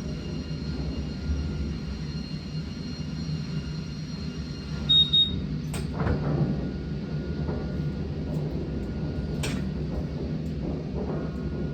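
DINACO band sawmill machinery running: a steady low rumble with a steady high whine over it, a short beep a little before the middle, and two sharp knocks a few seconds apart.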